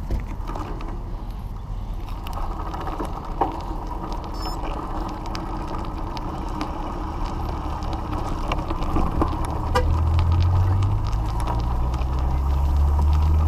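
Road traffic: a motor vehicle's engine running low and steady, growing louder and rising slightly in pitch from about ten seconds in as it comes closer.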